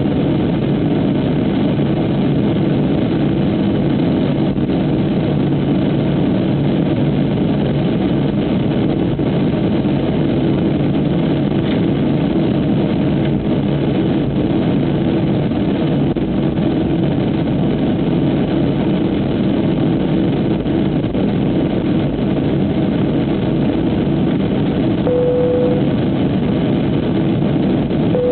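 Steady cabin drone of a Boeing 737 airliner's jet engines at low power as it taxis. Near the end a short tone sounds twice.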